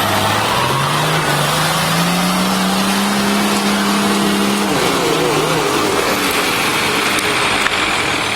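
Nissan Patrol 4x4's engine working hard off-road, its revs climbing slowly for a few seconds and then falling away about halfway through, over a steady noisy rush.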